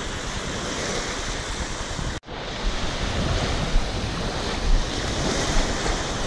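Small waves breaking and washing over the shallows, with wind rumbling on the microphone. The sound drops out for an instant about two seconds in.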